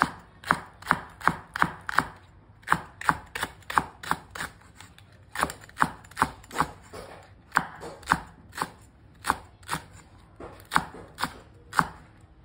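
Kitchen knife slicing a large Korean green onion into thick rounds on a wooden cutting board: a run of sharp knocks of the blade on the board, about two to three a second, broken by a few short pauses.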